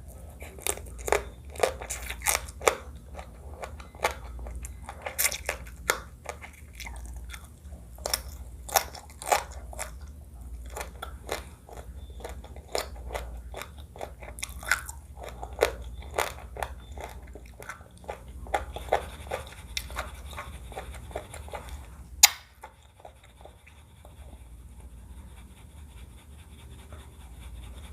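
Close-miked crunching bites and chewing of crab and green papaya salad: a quick run of crisp crunches and smacks. One sharp loud click comes near the end, after which the crunching stops.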